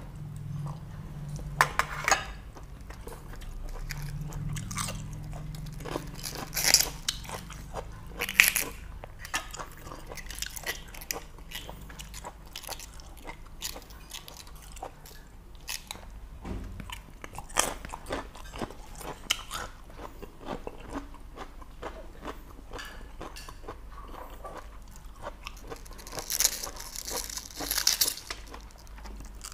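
Close-up chewing, biting and crunching of a person eating boiled pork intestines with raw cabbage, with sharper crisp crunches now and then. Near the end a crisp cabbage leaf is snapped off.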